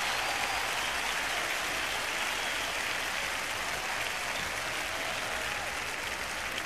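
Large concert crowd applauding and cheering: a steady, dense wash of clapping that eases off slightly toward the end.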